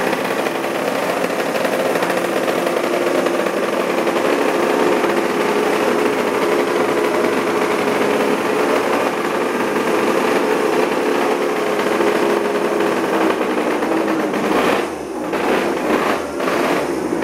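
Racing motorcycle engine running steadily, with several brief drops in the revs near the end.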